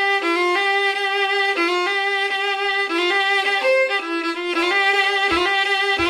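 Solo fiddle playing a phrase of a Scottish reel in 4/4 time, a steady run of quick bowed notes that takes in the tune's triplets.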